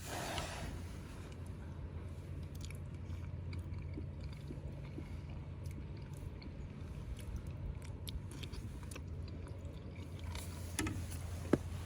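A person eating a mouthful of noodles: soft chewing with scattered small clicks, and one sharper click near the end, over a steady low wind rumble.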